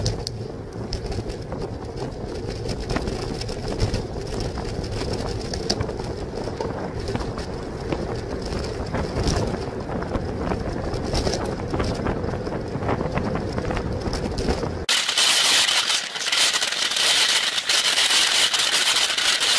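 Wind and road rumble picked up by a bicycle-mounted camera while riding. About fifteen seconds in, this switches abruptly to a steady high hiss.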